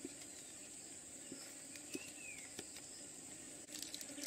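Faint outdoor ambience: a steady high-pitched insect drone, with a bird's single down-slurred whistle about two seconds in. A few light clicks and some handling rustle come near the end.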